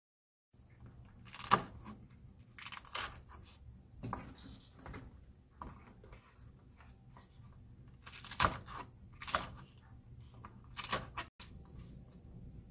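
Kitchen knife cutting through fresh shishito peppers on a plastic cutting board: crisp, irregular cuts, each a crunch of pepper and a knock of the blade on the board, about one every second or two.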